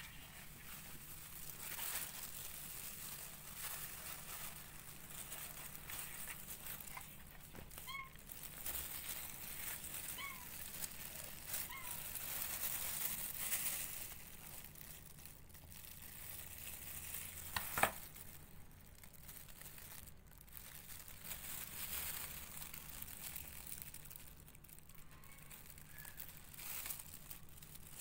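Tissue paper and a plastic glove rustling and crinkling as hands handle newborn kittens and cut the umbilical cord with scissors. One sharp click comes about two-thirds of the way through.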